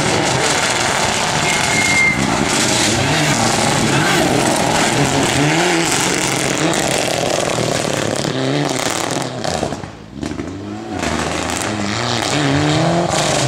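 Rally car engine at hard acceleration on a stage, its revs climbing and falling sharply again and again with gear changes. The sound fades briefly about ten seconds in, then builds up again.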